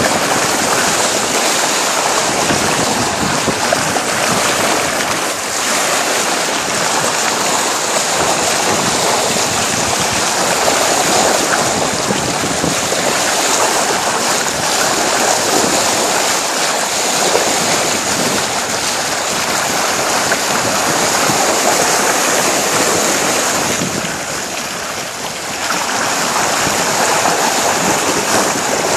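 Bow wave of a sailboat under way: water rushing and splashing steadily along the hull, easing briefly near the end.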